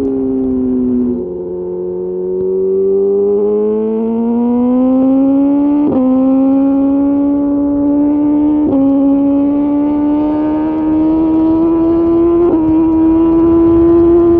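2021 BMW S1000RR inline-four with a full Austin Racing GP1R titanium exhaust, heard from the rider's seat, pulling hard through the gears. The engine note drops about a second in, then climbs steadily. It is cut by three quick upshifts, each a brief break in the note.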